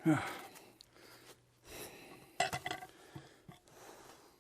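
A short grunt, then a few sharp metallic knocks and clinks about two and a half seconds in, as a log is worked onto the steel bed of a portable band sawmill that is not running.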